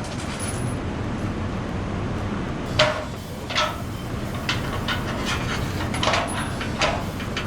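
Floor jack being pumped to raise the lower control arm and compress the coil spring, giving a few short metal clicks in two pairs about a second apart, over a steady low hum.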